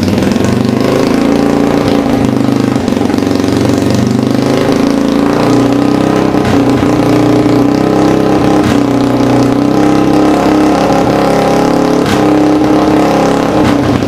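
Yamaha 225DX Tri-Moto's single-cylinder four-stroke engine running steadily and loudly after being brought back to life in the restoration, then dropping away at the very end.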